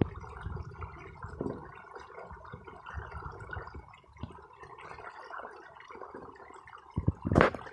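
Flood-irrigation water flowing along a field channel between crop rows: a steady, low trickling noise with small scattered clicks, and a brief louder noise near the end.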